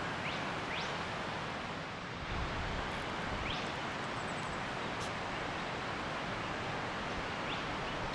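River water rushing steadily, with four short, upward-sweeping bird chirps over it.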